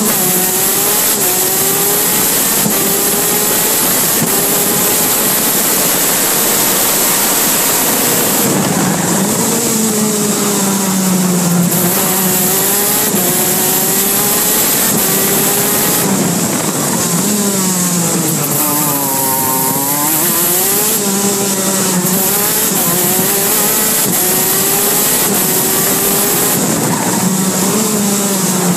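KZ2 shifter kart's 125 cc two-stroke engine at racing speed, heard from on board, its pitch climbing and falling repeatedly through the gears. It drops low and winds back up twice: about a third of the way in and again around two-thirds.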